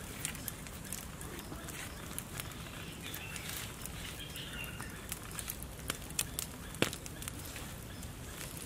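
Wood campfire crackling, with irregular sharp pops over a steady low hiss as a whole crocodile roasts in its skin on the flames; the loudest pop comes about two-thirds of the way through.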